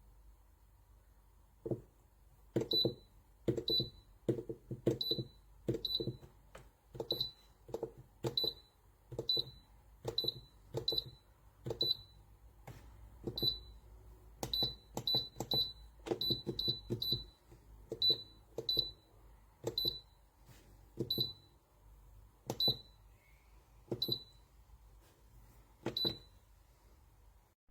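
Buttons on an electronic panel pressed about two dozen times, irregularly about once a second, each press a click with a short high beep.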